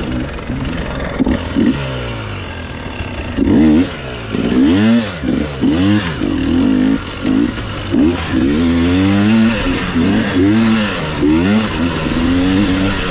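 Off-road dirt bike engine revving up and down over and over as the throttle is opened and closed, its pitch rising and falling about once a second.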